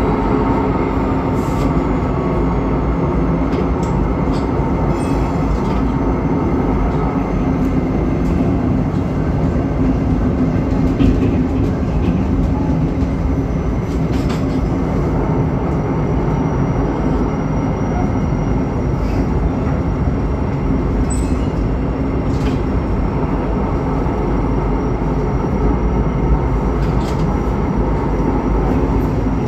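Historic electric tram running on rails: a steady, loud rumble of wheels and running gear with a steady hum, and a few short clicks along the way.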